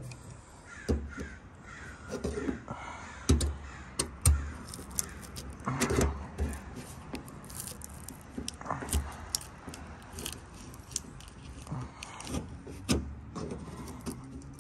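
Plastic trim-removal tool prying at a stick-on chrome fender vent held on with double-sided tape: scattered knocks and clicks, with short harsh scraping and creaking as the tool works behind the stubborn vent.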